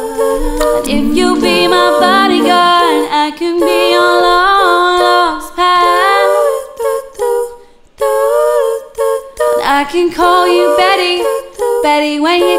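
Layered a cappella vocal loop of a woman's voice: several looped vocal parts sung in harmony at once, built with a loop station and a vocal harmony processor. The parts break off briefly about eight seconds in, then start again.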